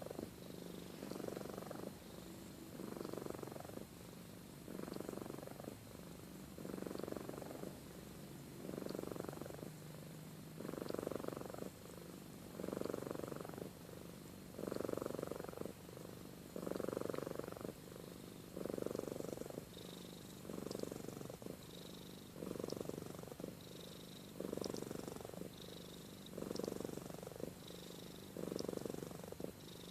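Domestic cat purring steadily, swelling and easing about every two seconds in time with its breathing.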